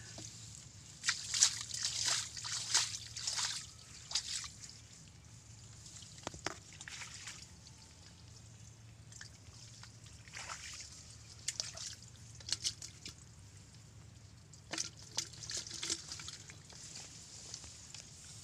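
Bare hands groping and digging through wet mud and shallow water for fish, squelching and splashing in irregular bursts, busiest in the first few seconds.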